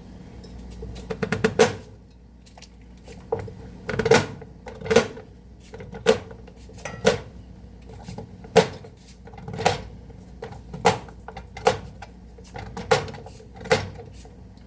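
Knife chopping potatoes on a cutting board: a quick run of cuts about a second in, then single firm chops about once a second.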